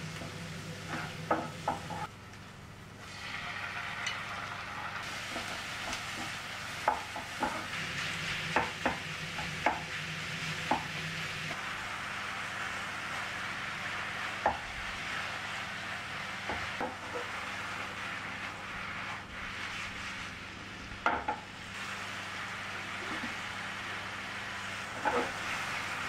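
Onions and ground beef sizzling as they fry in a nonstick frying pan, stirred with a wooden spatula that knocks against the pan now and then. The sizzle grows louder about three seconds in.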